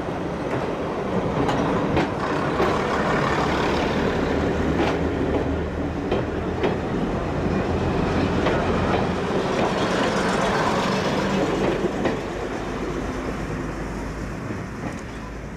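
First-generation diesel multiple unit pulling out and passing close by: a steady low drone from its underfloor diesel engines, with the wheels clicking over rail joints as the coaches go past. It fades away near the end as the last coach clears.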